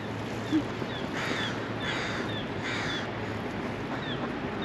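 Crow cawing three times, harsh calls less than a second apart, with faint short high chirps repeating in the background.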